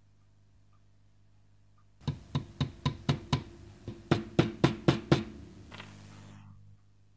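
A small metal hammer tapping the nameplate onto the pencil sharpener's metal housing: about a dozen sharp taps in quick succession, roughly three to four a second, starting about two seconds in, followed by a brief hiss.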